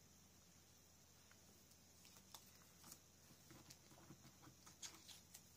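Near silence with faint, scattered small taps and rustles of paper pieces being handled and placed on a scrapbook layout, more frequent from about two seconds in.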